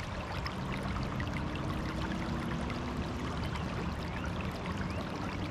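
River water trickling and lapping against a boat hull, a steady splashy wash with small drips and ticks.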